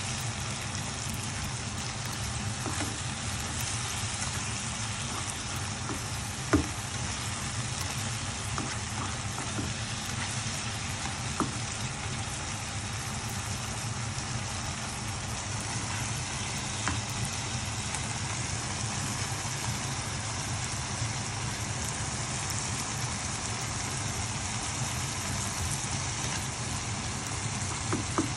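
Eggplant, onion and tomato sizzling steadily in a frying pan, with a few sharp clicks of a utensil against the pan, the loudest about six and a half seconds in. A steady low hum runs underneath.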